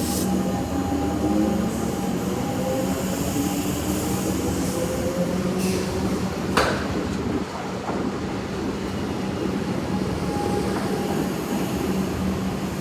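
Electric suburban train in a station, its motors whining up in pitch over the first few seconds over a steady hum. A few sharp clicks come about halfway through.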